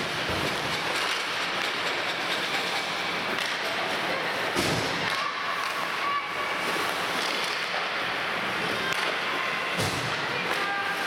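Ice hockey rink sound during play: a steady scraping wash of skates on the ice, with a few knocks of sticks and puck, one about four and a half seconds in and another near the end.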